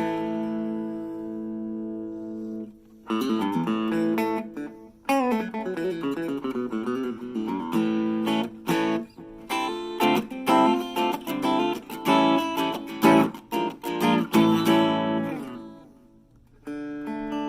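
Harley Benton CST24-HB electric guitar played through a Blackstar Fly 3 mini amp. A chord rings for about three seconds, then there is a run of quickly picked notes and chords. It fades out, and a new chord rings near the end.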